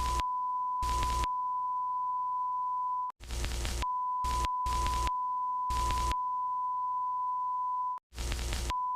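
Simulated emergency-alert broadcast audio: a steady, high single beep tone repeatedly broken by loud bursts of static that come in clusters of two or three. There are brief cuts to dead air about three and eight seconds in.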